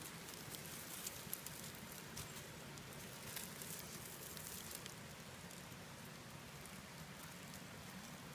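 Faint rustling and crackling of dry leaf litter, many small crackles over the first few seconds that thin out later.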